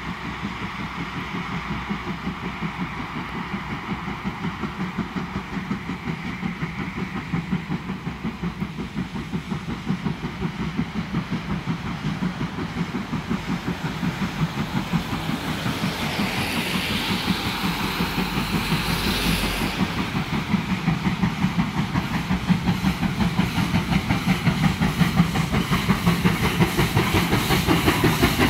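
Bavarian S 3/6 four-cylinder compound steam locomotive working a train, its exhaust beats coming in a steady rhythm that grows louder and quicker. A hiss of steam swells and fades about two-thirds of the way through.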